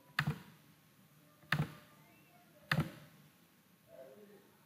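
Computer mouse clicking: three sharp clicks about a second and a quarter apart.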